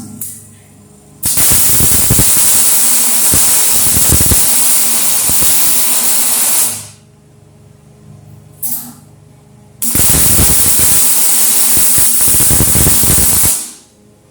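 Electric arc welding on steel channel: two welds, the first about five seconds long, the second about four, each a loud steady sizzling hiss with crackle that starts and stops abruptly.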